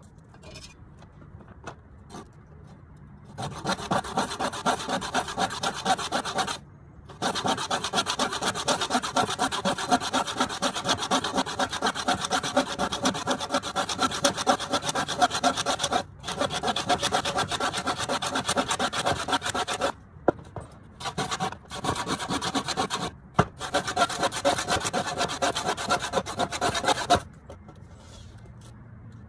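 Handsaw cutting a wooden board with quick, steady back-and-forth strokes. The sawing begins a few seconds in and goes on in long runs with a few short breaks, then stops near the end.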